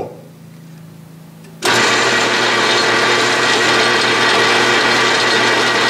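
Atlas/Craftsman 12-inch lathe switched on about one and a half seconds in, then running loud and steady in forward, driving the carriage through the engaged half nut as the single-point tool cuts a thread pass on the work.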